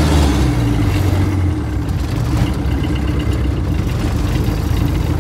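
The Mitsubishi 4D34T turbo-diesel four-cylinder of a 1991 Dodge D150 pickup running as the truck drives along, heard from inside the cab with a rattly drone. The low engine note eases off about a second and a half in.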